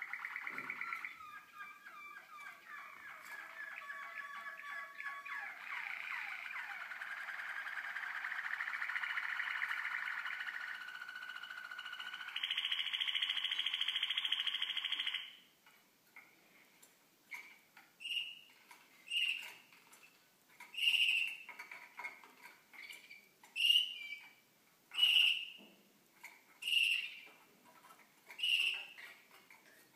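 Young Malinois Waterslager canaries singing: a continuous run of rolling, trilling song, ending about twelve to fifteen seconds in with a loud, steady high note, then short high chirps repeated about every one and a half seconds.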